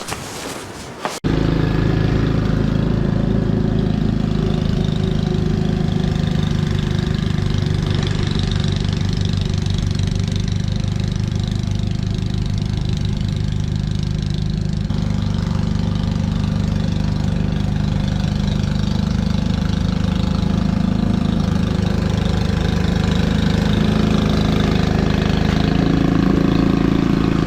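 Ariens Classic 24-inch two-stage snow blower's single-cylinder engine running steadily under load as it cuts into heavy, wet drifted snow. The sound starts abruptly about a second in.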